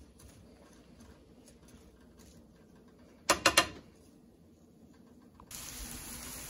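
Wooden spoon stirring diced onions and peppers in a nonstick skillet, with faint scraping, then three quick sharp knocks of the spoon against the pan a little over three seconds in. About five and a half seconds in, a steady frying sizzle starts suddenly as the vegetables sauté.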